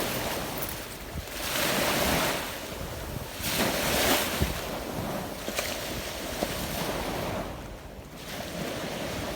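Sea waves washing onto a beach, the surf swelling up twice and easing back, with wind buffeting the microphone.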